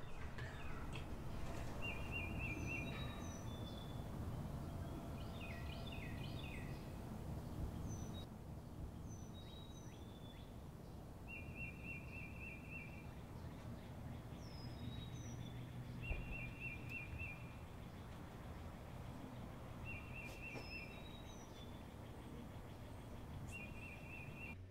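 Songbirds calling over a low, steady background rumble: a short rapid trill repeated about five times, a few seconds apart, with scattered high chirps between.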